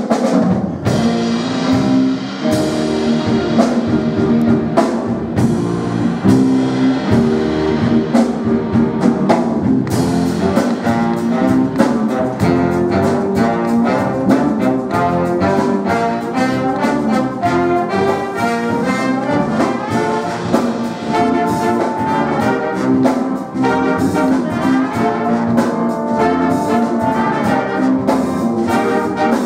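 Student jazz big band playing a soul-jazz groove, with saxophones, trumpets and trombones in the horn section. The band grows fuller and brighter about ten seconds in.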